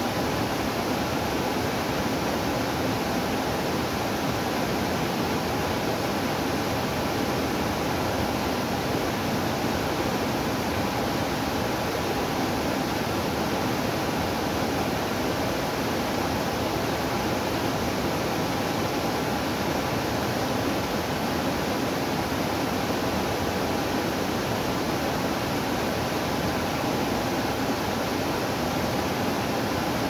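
Small waterfall pouring over a rock ledge into a pool: a steady, even rush of falling water with no change.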